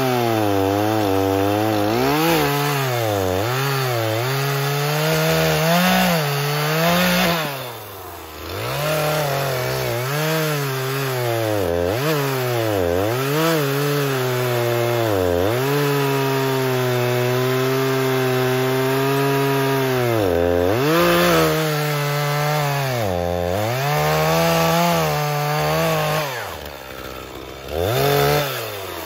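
Two-stroke Echo chainsaw cutting through a fallen tree trunk, making one cross-cut after another. The engine pitch sags as the chain loads up in the wood and climbs again as it frees; it falls back briefly about eight seconds in and again near the end, between cuts, then revs up once more.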